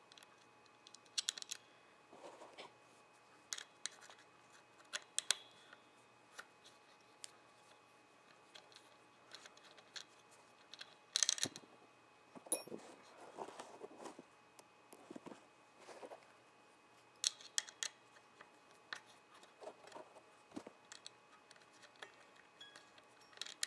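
Sparse small metallic clicks and scrapes as the clamp bolts and clamp pads of a Jackson guitar's Floyd Rose locking nut are unscrewed and lifted off by hand. There is a louder cluster of clicks about halfway through.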